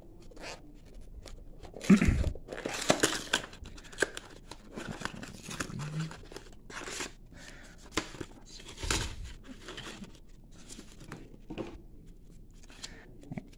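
A cardboard trading-card repack box being torn open by hand: irregular ripping and crinkling of card and paper, loudest about two seconds in and again near nine seconds, each with a low bump. It ends in quieter small clicks as the loose cards are handled.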